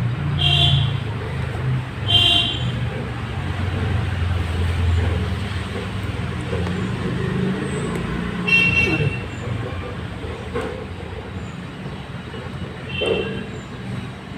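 Road traffic running by with a steady low rumble, and short horn toots four times.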